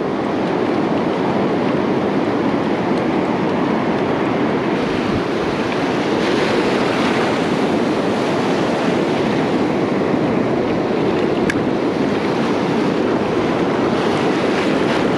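Ocean surf washing up a sandy beach, a steady rush of breaking waves and foam, with some wind on the microphone.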